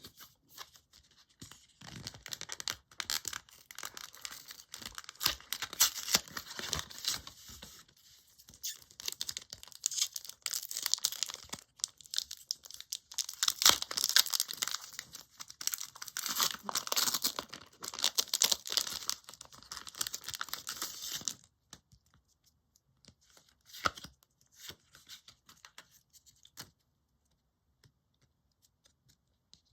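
Foil wrapper of a Pokémon trading-card booster pack crinkling and tearing as it is opened by hand, for about twenty seconds. Then it stops, and a few scattered light clicks follow.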